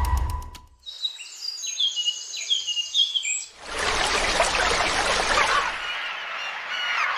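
Synthetic birdsong: a single bird gives a run of short, high, falling chirps, then a dense, noisy chorus of many chirping birds takes over about halfway in.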